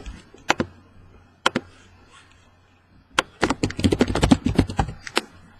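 Hard clicks and taps: two single clicks, then a quick flurry of clicks about three seconds in, lasting some two seconds.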